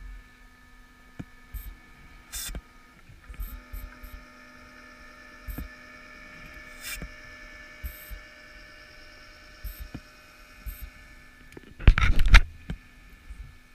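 Underwater recording: a steady hum with a few thin higher tones and scattered faint clicks, then a short loud burst of noise about 12 seconds in.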